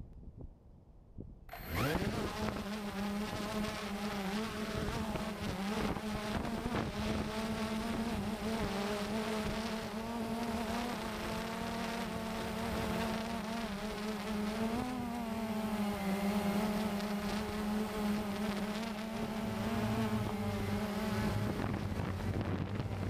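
Cheerson CX-20 quadcopter's four motors spinning up about a second and a half in, then a steady buzzing whine that wavers slightly in pitch as it flies; a lower hum joins near the end.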